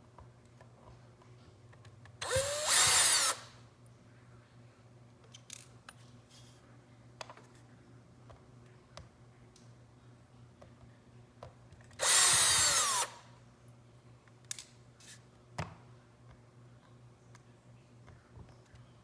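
Small electric drill/driver backing out tiny calculator screws, run in two short bursts about a second each and some ten seconds apart, with light clicks of small parts between.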